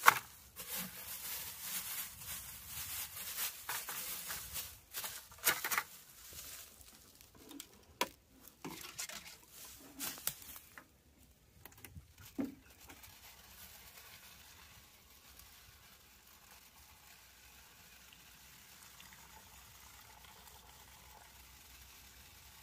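A plastic bucket is set down with a sharp knock, followed by rustling in dry leaves, crinkling of a flexible plastic sap-collection jug and a few knocks as it is lifted and handled. In the second half a faint steady trickle begins as maple sap pours from the jug into the plastic bucket.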